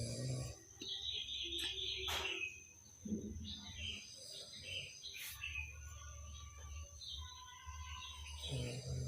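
A man snoring, long low breaths of about two seconds each with short gaps, while birds chirp and tweet in the background.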